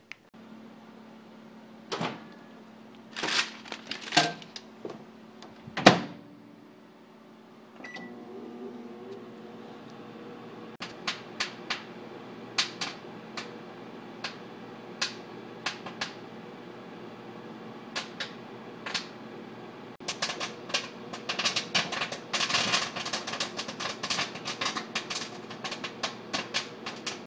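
Microwave oven humming while an ear of popcorn on the cob pops inside its bag. A few knocks come in the first six seconds and a short beep about eight seconds in. Then sharp pops start sparse and come thick and fast after about twenty seconds.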